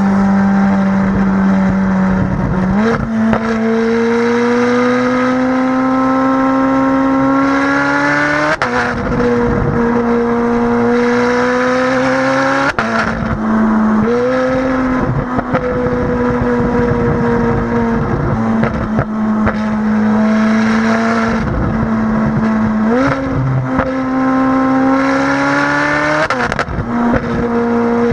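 Ferrari 458 Spider's naturally aspirated 4.5-litre V8 running steadily under load through its Innotech valved performance exhaust, its pitch climbing slowly and then dropping suddenly several times as the gears change.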